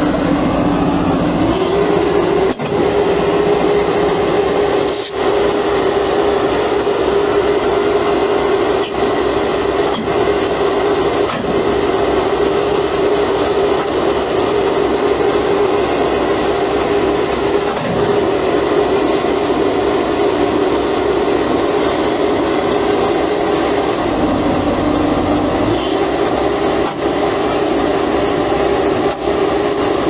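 A loud, steady machine drone, dipping lower in pitch twice for a second or two.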